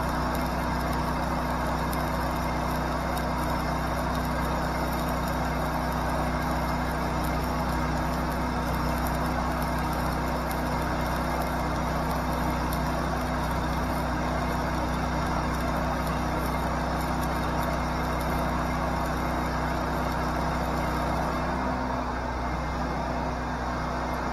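Stick-welding arc burning steadily over the running engine of a Hobart Champion Elite engine-driven welder under welding load. Near the end the arc stops and the engine note changes as the load comes off.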